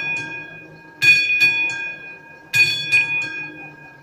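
Classic mechanical warning bell of an AŽD 71 level-crossing signal ringing while the crossing is active. It strikes in short clusters about every one and a half seconds, each cluster ringing on and dying away.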